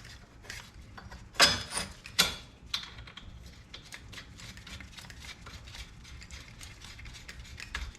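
A few metal clanks as a bolt is fitted, then a socket ratchet wrench clicking in a long, even run of small clicks as the nut on the bolt is tightened.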